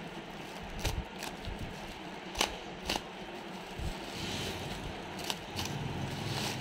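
Plastic packaging, a blue polythene bag and clear wrap, crinkling and crackling as it is slit with a blade and pulled open by hand, with scattered sharp crackles and a longer rustle past the middle.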